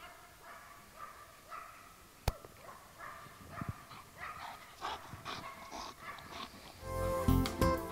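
German Shepherd dog whining and yipping in short high calls, about two a second. A single sharp click comes a little over two seconds in, and louder guitar music starts near the end.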